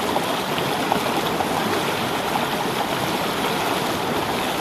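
Shallow, rocky river flowing over and around stones: a steady rush of water.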